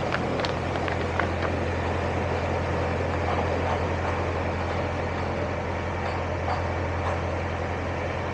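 Narrowboat engine running steadily while cruising, a constant low hum with an even drone above it.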